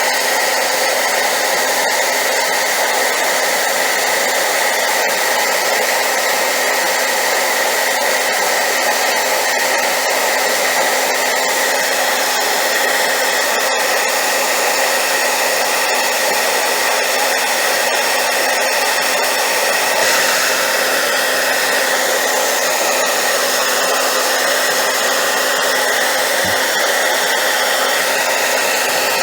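Hair dryer running steadily on high power: a loud, even rush of air with a steady motor whine over it.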